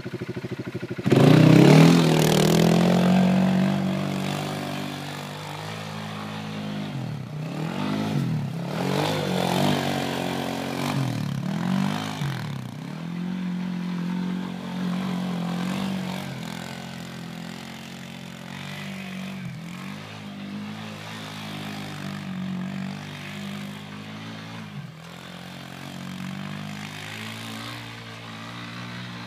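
Kawasaki 300 ATV's single-cylinder four-stroke engine running under a rider, loud and revving high about a second in, then rising and falling in pitch several times as the throttle is worked, and running steadier and quieter in the second half.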